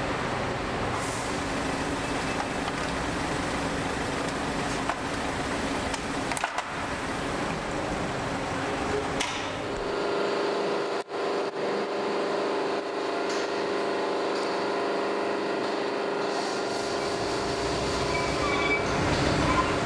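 Fire-service ambulance's engine running steadily, with a few scattered knocks and clicks. It grows a little louder near the end as the vehicle pulls out.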